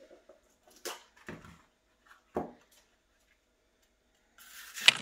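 A few soft knocks of pieces of bell pepper and chilli being set into a steel roasting tray. Near the end comes a crisp crunching as a knife slices through a yellow bell pepper.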